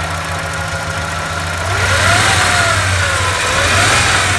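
Ford 2.9L V6 idling steadily while misfiring, with cylinder #4 not firing. The owners suspect an intake manifold leak. About two seconds in, a louder hiss with a slowly wavering whistle joins the engine sound.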